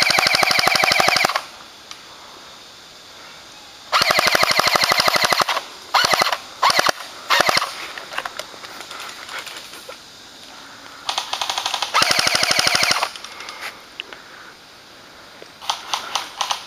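Airsoft electric guns firing on full auto: a rapid, even rattle of shots in bursts. There are long bursts at the start, about 4 s in and about 12 s in, with several short bursts around 6 to 7.5 s and scattered single pops near the end.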